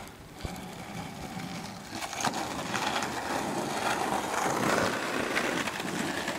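Skateboard wheels rolling on pavement: a steady rushing, grinding noise that grows louder about two seconds in, with a few sharp clicks.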